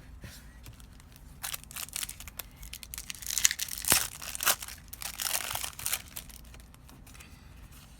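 Plastic-foil booster pack wrapper crinkling and tearing as it is opened by hand: a run of crackles and rustles from about a second and a half in to about six seconds in, loudest in the middle.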